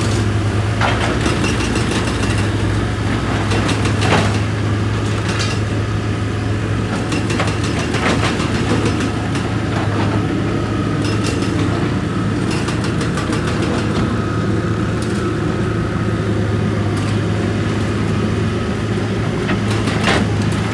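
Heavy diesel machinery running steadily with a deep hum, with scattered sharp knocks and clatters of rock, several of them a few seconds apart.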